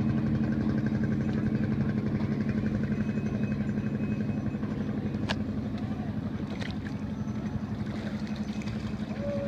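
Motorboat engine running steadily with an even, low throb.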